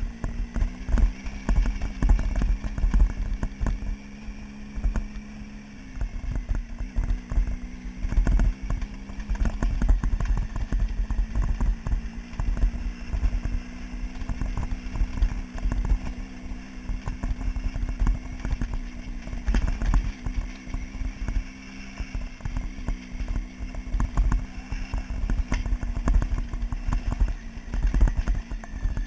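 Motorcycle engine running at a steady, even speed while riding over a loose rocky gravel track, with frequent irregular knocks and rattles from stones and the jolting bike, and low wind rumble on the microphone.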